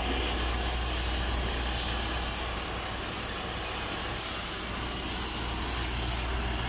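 Steady rushing hiss over a low, even hum: workshop background noise with no single sound standing out.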